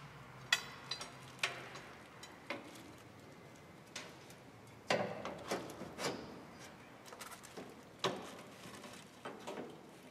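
Irregular metallic clicks and knocks as the clamp and domed lid of a dry-cleaning machine's filter tank are handled, the sharpest just after half a second in, about five seconds in and about eight seconds in.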